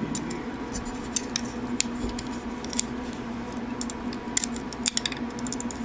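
Small, sharp, irregular clicks and taps of plastic toy parts being handled and worked open.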